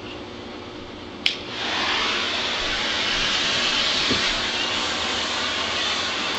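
Vacuum cleaner switched on with a click about a second in, its motor spinning up quickly and then running steadily.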